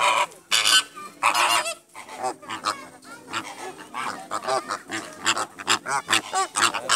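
A flock of flamingos honking, many calls overlapping. The calls are loudest and densest in the first two seconds, then come as a quick run of shorter calls.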